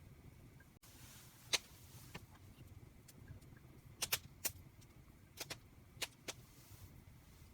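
Wood campfire crackling: a few sharp, irregular pops and snaps, the loudest about a second and a half in and a quick cluster around the middle, over a low, steady murmur.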